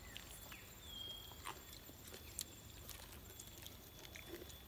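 Faint eating sounds as people eat noodles with chopsticks: scattered small clicks and mouth noises, with a short high-pitched chirp about a second in.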